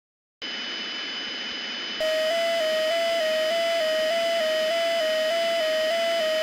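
Electronic alert tone for an emergency broadcast: about half a second in, a hiss with two steady high whistles starts, and at about two seconds a louder tone begins warbling between two nearby pitches, switching about three times a second, over the hiss.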